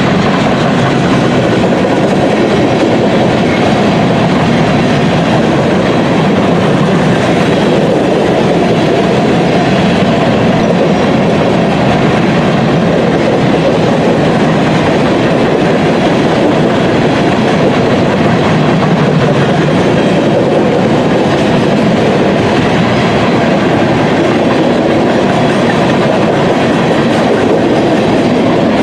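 Freight train's covered hopper cars rolling past, a loud, steady noise of steel wheels running on the rails.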